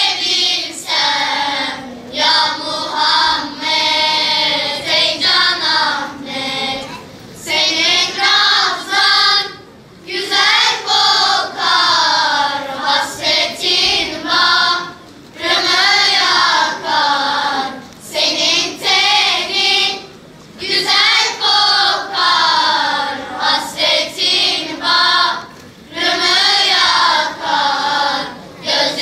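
Children's choir of boys and girls singing together, in phrases a few seconds long with short breaks for breath between them.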